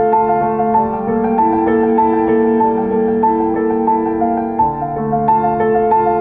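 Background music: a gentle piano piece with held chords under a softly repeating higher note figure.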